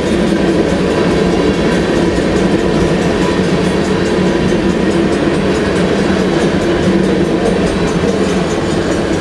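Freight train cars, tank cars and then autorack cars, rolling past with their steel wheels running steadily on the rails.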